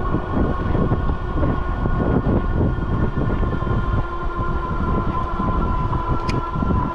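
Wind buffeting the microphone and tyre noise from an electric cargo bike rolling on pavement, with a steady high whine from the bike's electric motor.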